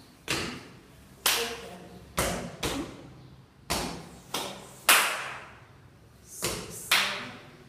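A dancer's sneakers stomping on a wooden parquet floor: about nine sharp hits at an uneven rhythm, each ringing on in a large bare room.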